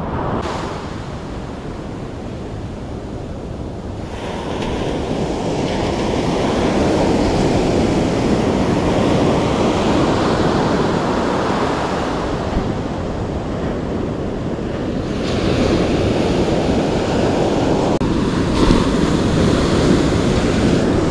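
Sea surf breaking and washing up a sandy beach, a continuous rush that swells and eases, with wind buffeting the microphone.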